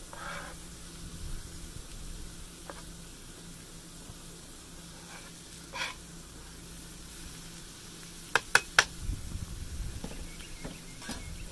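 Diced vegetables and butter sizzling on a Blackstone flat-top griddle, a steady hiss, while a knife scrapes them off a plastic cutting board. About eight seconds in come three sharp taps in quick succession.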